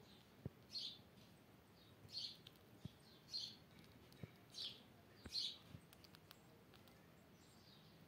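Indian palm squirrel giving short high chirps, about one a second, then falling quiet for the last couple of seconds. Faint clicks sound in between.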